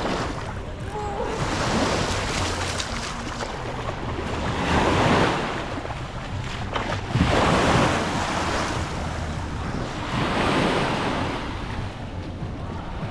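Small sea waves washing onto the shore, swelling and falling back every few seconds, with wind rumbling on the microphone.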